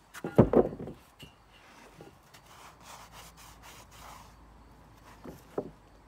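Sawn pine boards being handled: a few heavy wooden thuds, then wood scraping and sliding against wood for a couple of seconds, and another knock near the end.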